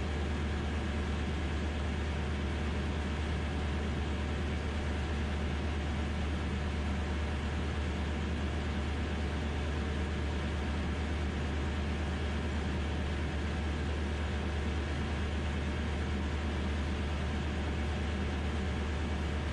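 DynAero MCR01 ultralight's engine and propeller droning steadily in level cruise, heard inside the cockpit with rushing airflow noise. The pitch and level hold constant throughout.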